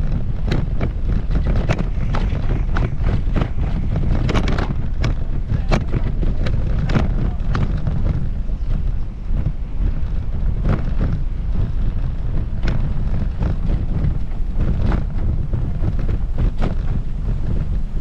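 Wind buffeting the microphone as a steady heavy low rumble, with short sharp taps about once or twice a second over it.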